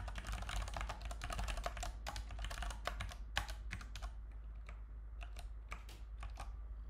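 Typing on a computer keyboard: a fast run of keystrokes for about four seconds, then a few separate key presses with gaps between them.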